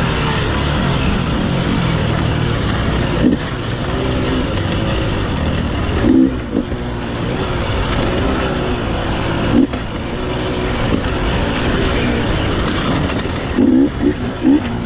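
Off-road dirt bike engine running hard, its revs rising and falling, with sharp throttle bursts about 3, 6 and 10 seconds in and a quick cluster of them near the end.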